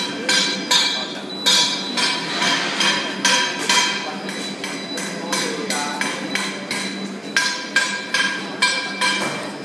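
Self-propelled pallet stretch-wrapping robot running around a pallet: a regular metallic clinking, about two to three ringing knocks a second, over a steady low hum.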